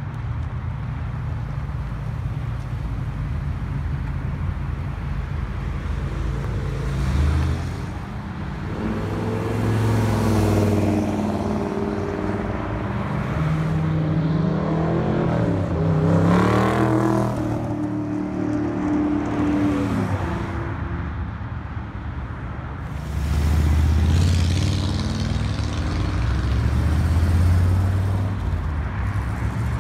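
Car engines running, one revving so that its pitch climbs to a peak about halfway through and then falls away, with another engine swelling up near the end.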